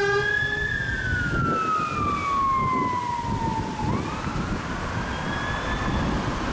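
Fire engine siren sounding a slow wail, the pitch rising and then falling over about three seconds and starting to rise again, over engine and traffic rumble. A steady horn note cuts off within the first second.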